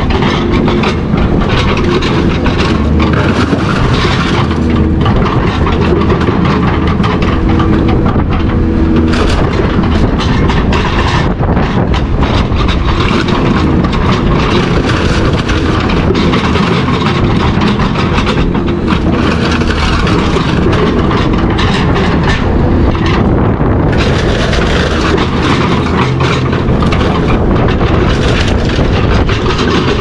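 Metal clanking and rattling continuously, dense knocks over a steady low mechanical drone, loud throughout.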